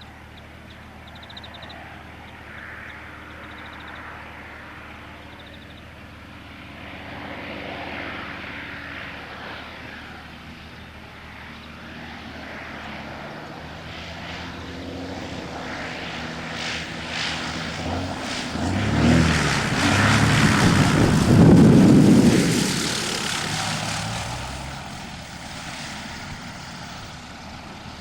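Cessna Agwagon topdressing plane's piston engine and propeller, flying in, passing close by, and flying away. It grows steadily louder to a peak about three quarters of the way through, the engine note dropping in pitch as it goes past, then fades.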